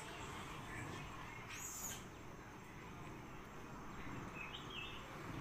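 Faint outdoor forest ambience with a short bird call about four and a half seconds in, and a brief hissing rustle near two seconds.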